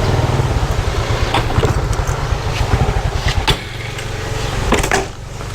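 Motorcycle engine running at low speed, faltering about three and a half seconds in and stalling near the end.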